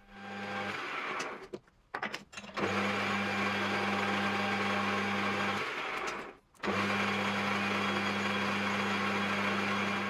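Metal lathe running with a steady motor hum while a turning tool faces the back of a small stainless steel part. The sound breaks off briefly twice.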